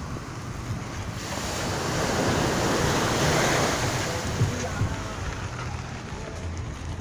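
Sea surf washing on a sandy beach, with wind buffeting the microphone; the rush swells about a second in, peaks around the middle and fades again.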